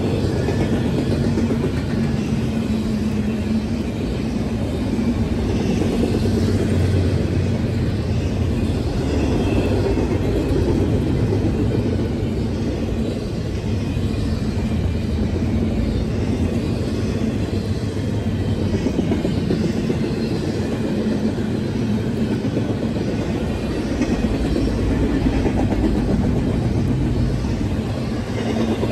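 Double-stack intermodal freight cars rolling past, a steady rumble of steel wheels on the rails.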